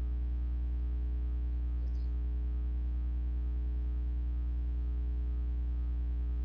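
Steady low electrical hum on the recording, with a faint mouse click about two seconds in.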